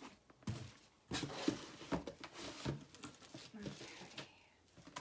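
Cardboard boxes and packaging being handled: irregular rustling, scraping and a few light knocks, easing off near the end.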